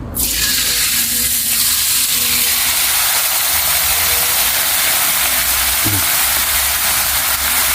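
Pickled-fish seasoning paste from an oil packet hitting hot rapeseed oil in a hotpot and sizzling. The sizzle starts suddenly and stays loud and steady.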